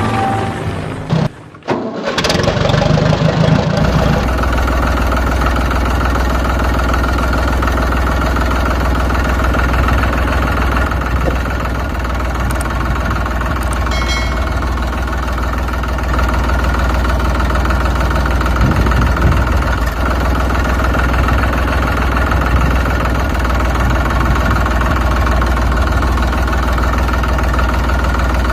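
An engine starts up about two seconds in, then runs steadily at idle with a deep, even hum.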